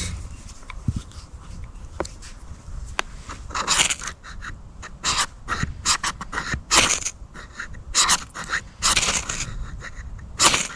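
Sharp scraping strokes, about a dozen in irregular bursts, made while trying to light a campfire with fat wood.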